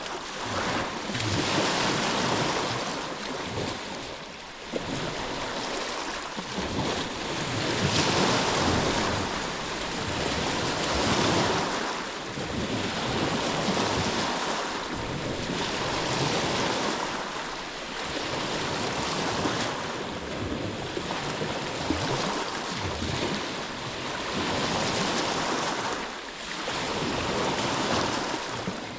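Ocean waves breaking and washing in, swelling and receding every few seconds in a steady rhythm.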